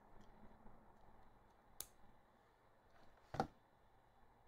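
Small clicks from a Beyblade top's parts being handled and fitted together: a sharp click about two seconds in and a louder click near the end, with faint ticks between.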